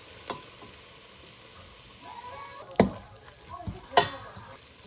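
Food sizzling as it fries in a pan, with a few sharp knocks: a small one early, then two loud ones about three and four seconds in.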